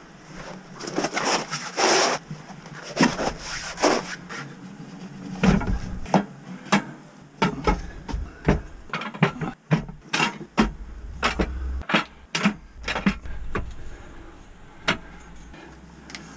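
Clattering of a LiFePO4 battery enclosure being taken apart by hand. Rubbing and scraping for the first few seconds, then a run of sharp clicks and knocks, several a second, as the cover and parts are lifted off the cells.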